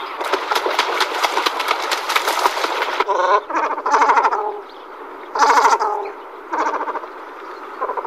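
Great cormorants calling with croaking calls. A dense, rapid chatter of calls runs for the first three seconds, then separate calls of under a second each follow with short pauses between.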